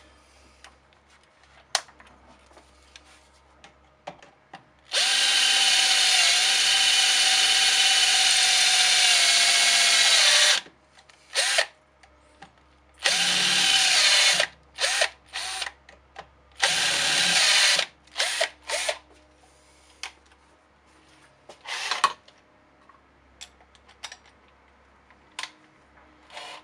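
Cordless drill with a 5.5 mm bit boring into the head of a brass .45 Colt case, widening the primer pocket to take a 209 shotgun primer. After a few light clicks it runs steadily for about five seconds, then in several short bursts.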